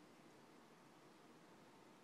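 Near silence: faint steady room hiss.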